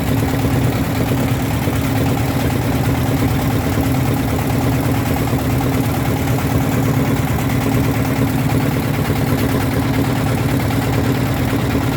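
A boat's engine running at a steady pace, a constant low hum.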